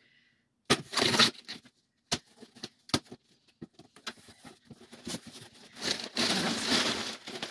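Cardboard box being opened by hand: a short rip of packing tape about a second in, cardboard flaps scraping and knocking, then crumpled brown packing paper rustling and crinkling as it is pushed aside near the end.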